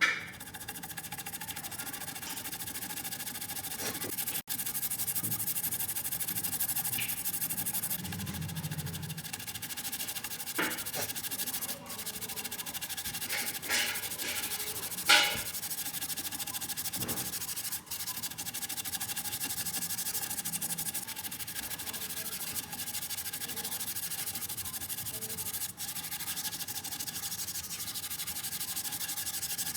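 Steady abrasive scrubbing of a coin, a continuous hiss, with a few short taps and clicks between about 10 and 16 seconds in.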